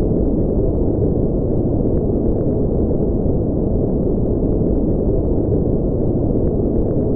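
Steady low, dark noise with no highs: a synthetic spaceship-engine ambience of brown-noise type, unchanging in level.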